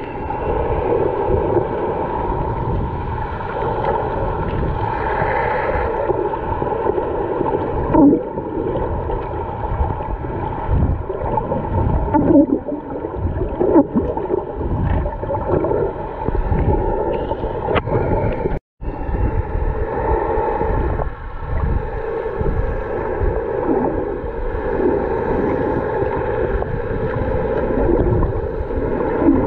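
Muffled underwater sound picked up by a camera held underwater: water rushing and gurgling against it, with a steady low hum. It cuts out for an instant about two-thirds of the way through.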